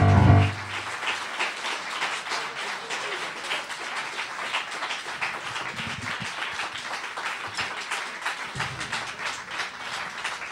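A jazz band's final chord ends with a short loud hit at the very start, then an audience applauds steadily.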